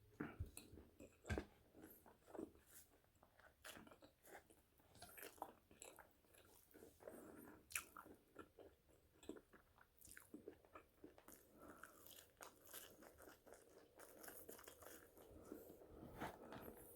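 Close-up chewing and biting of french fries: a steady run of small crunches and wet crackles, with sharper bites about a second in and near the middle.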